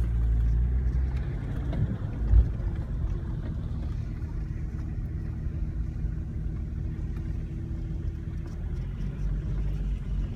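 BMW car driving slowly over a bumpy grass track, heard from inside the cabin: a steady low engine and tyre rumble, with one loud thump about two and a half seconds in.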